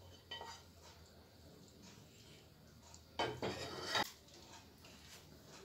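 Wooden spatula scraping sauce from a metal frying pan onto a plate with faint clicks, then a louder clatter of under a second a little past halfway as the pan is set back on the gas stove's grate.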